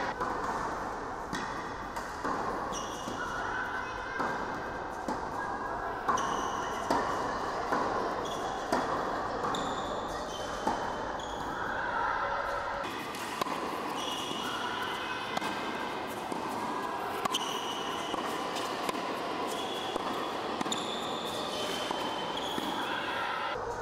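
Tennis rally on an indoor hard court: repeated racket strikes and ball bounces, with sneakers squeaking on the court surface, echoing in a large hall.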